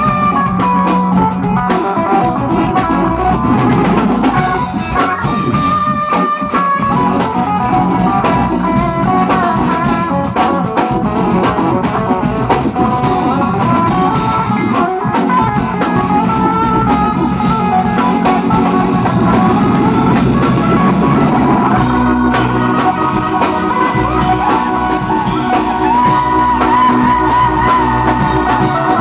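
Live rock band playing at full volume: a drum kit keeping a steady beat under electric guitars, bass and keyboards.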